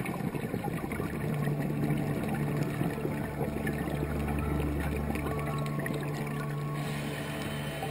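Underwater ambience: the steady low drone of a boat engine carried through the water, over a constant fine crackle.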